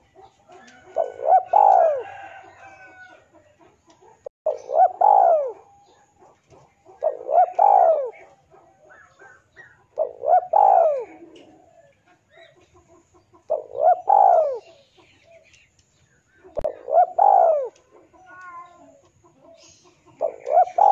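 Male spotted dove cooing: a short coo followed by a longer rising-and-falling coo, repeated about every three seconds, seven times. This is the male's call to rivals.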